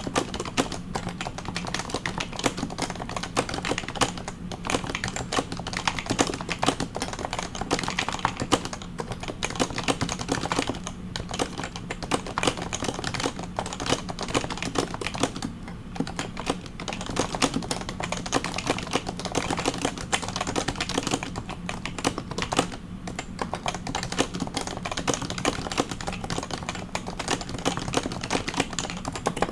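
Fast continuous typing on a stock Happy Hacking Keyboard Professional 2 with Topre switches, a dense run of key presses broken by brief pauses. A faint steady hum sits underneath.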